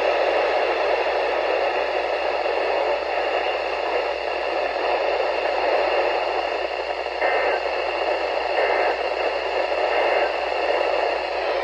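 Steady radio static: a weather-radio receiver hissing on a weak, poorly received signal.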